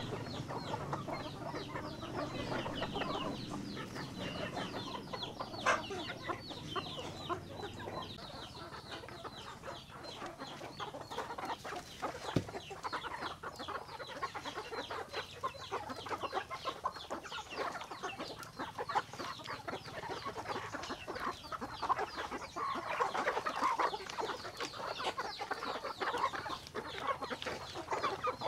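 A flock of chickens clucking busily as they crowd in to feed, with a couple of sharp knocks among the clucks. The calling grows louder and busier near the end.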